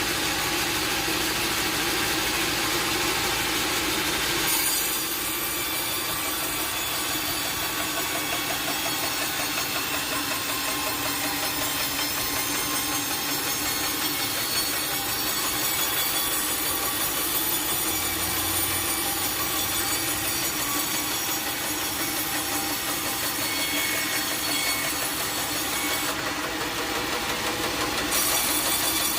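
Sawmill saw cutting steadily through a log, a continuous mechanical whine and rasp of the blade in the wood, changing slightly about four and a half seconds in.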